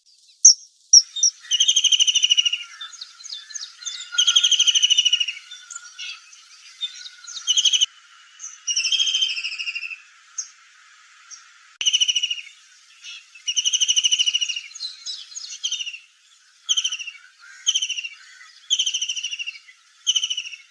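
Kingfisher calling: repeated high, shrill call phrases about a second long, with short sharp single notes between them.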